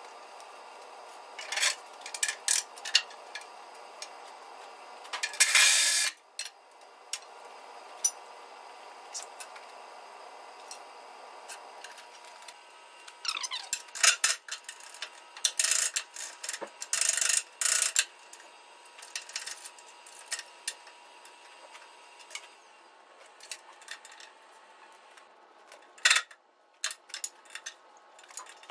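Hand tools working on metal parts: scattered sharp clicks, clanks and scraping, with the loudest burst about five seconds in and another busy stretch in the middle. A faint steady hum runs underneath.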